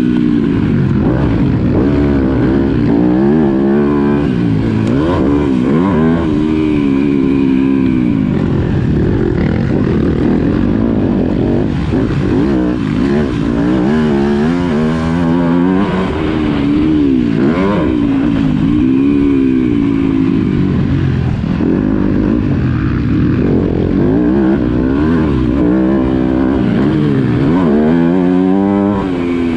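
Yamaha motocross bike's engine being ridden hard, revving up and backing off over and over, its pitch rising and falling every couple of seconds as the throttle is opened and shut.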